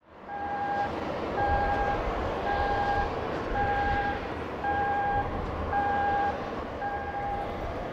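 Electronic warning beeper sounding seven times, evenly about once a second, each beep a single steady mid-pitched tone about half a second long, over the steady rumble and hiss of airport apron noise.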